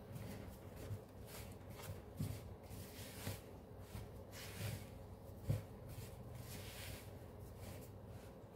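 Spatula stirring and scraping a crumbly flour dough in a mixing bowl: soft repeated scraping strokes with low bumps, and one sharper knock about five and a half seconds in.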